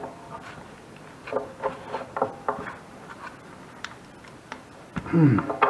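Metal tool scraping and picking old gasket residue out of the gasket channel of an outdoor wood furnace door, in irregular clicks and short scrapes. A louder scrape that falls in pitch comes about five seconds in.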